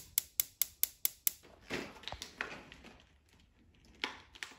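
Battery-powered pulse spark igniter of a Blackstone griddle ticking as it sparks at the electrode beside the burner tube: a fast, even run of sharp clicks, about five a second, that stops after about a second and a half. Softer handling noises follow.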